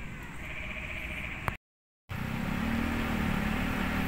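A vehicle engine running steadily nearby, a low even hum that starts abruptly after a brief dead gap about one and a half seconds in; before the gap there is only a quieter outdoor background.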